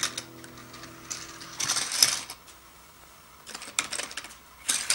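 Hard plastic toy parts clattering and rattling against a plastic track in three short bursts, about a second and a half apart.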